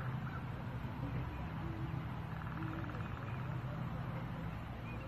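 Outdoor ambience: a steady low hum, with faint bird chirps and far-off voices now and then.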